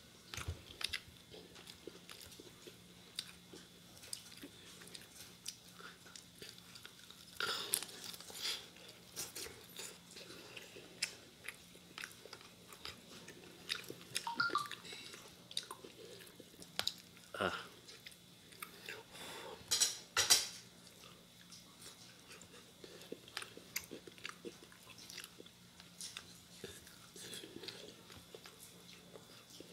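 Close mouth sounds of chewing and biting roast chicken, with the bird being pulled apart by hand: a scattered run of small clicks and smacks, with louder moments about eight and twenty seconds in.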